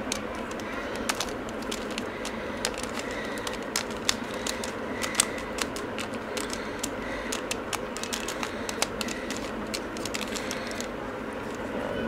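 Plastic mirror cube being turned by hand: its layers clicking and clacking at an irregular pace as the pieces are moved.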